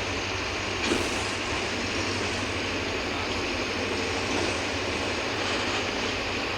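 Mercedes-Benz OF-1721 Bluetec 5 city bus running on the road: steady diesel engine and road noise, with one brief sharp hissing knock about a second in.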